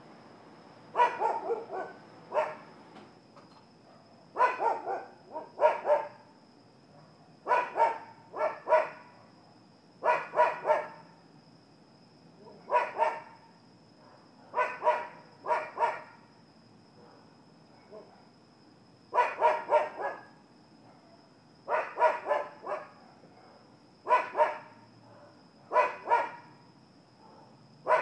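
Dogs barking in short bouts of two to four sharp barks, a new bout every two or three seconds.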